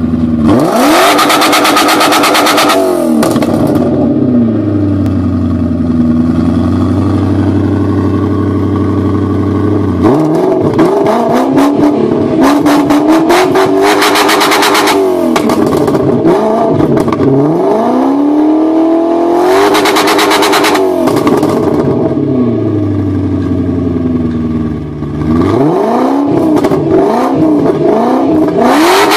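BMW E39 540i's 4.4-litre V8 blipped several times at a standstill through an aftermarket Remus exhaust. The note climbs quickly and falls back each time, with one long, slow drop to idle after the first rev.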